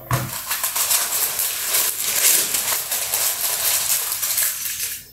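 A sheet of baking paper rustling and crinkling as it is pressed and smoothed into a metal baking tray, a steady dense crackle throughout.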